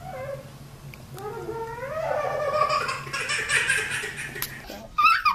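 A small child laughing: a long giggle that builds from about a second in and fades away before the end.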